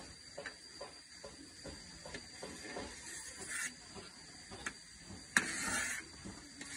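Palm sap boiling down for palm sugar in a large wok over a wood fire, with many small pops and crackles as a long-handled stirrer works through it. Two louder hissing swishes come about three and five and a half seconds in, the second starting with a sharp knock.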